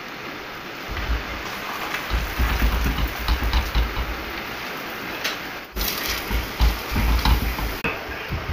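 Paratha sizzling in ghee on a hot iron tawa: a steady crackling hiss, with intermittent low rumbles underneath.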